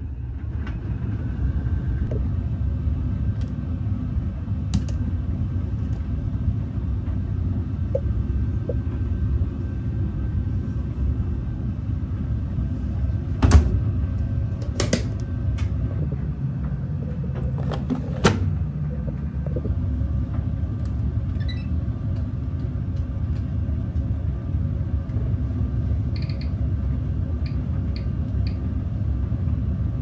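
Laundry machine drum turning with a load of clothes: a steady low rumble, with a few sharp clicks about halfway through.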